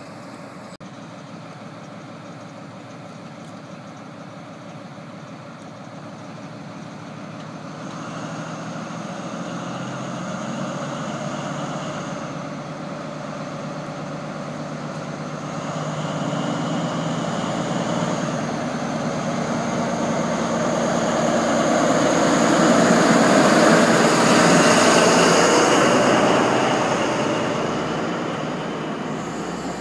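Class 43 diesel power car of a High Speed Train (InterCity 125) pulling away from the platform. Its engine runs steadily at first, then builds with a high whine from about a quarter of the way in as the train accelerates. It is loudest about three-quarters of the way through as the power car passes, then eases as the coaches roll by.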